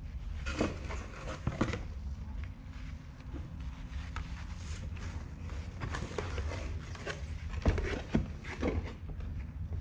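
A clear plastic accessory bag handled with gloved hands and set down on a tabletop: scattered rustles and light taps over a steady low hum.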